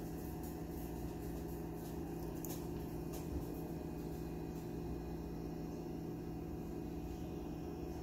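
Steady low hum, with a few faint ticks early on and a small knock about three and a half seconds in.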